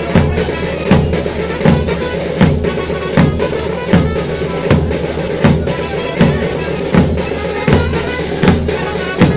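Large double-headed dhol drums of a village folk band beating a steady rhythm, with a heavy stroke about every three-quarters of a second. A continuous wavering high melody runs over them.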